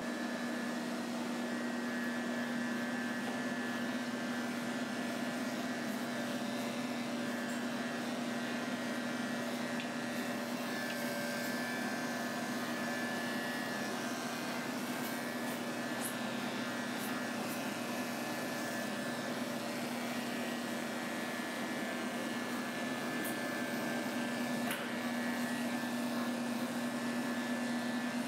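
Corded electric dog-grooming clippers running with a steady hum as they shave a schnauzer's coat.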